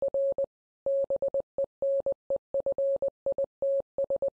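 Morse-code-style electronic beeping: one steady mid-pitched tone keyed on and off in a quick, irregular pattern of short and long beeps.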